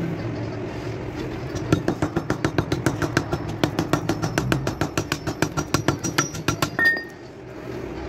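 Rapid light hammer taps on metal, about five a second with a metallic ring, as a small hammer strikes an old knife held against a steel ring. The tapping starts a couple of seconds in and stops near the end.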